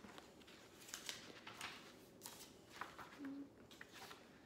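Pages of a paperback book being flipped: a few faint, quick papery rustles and flicks.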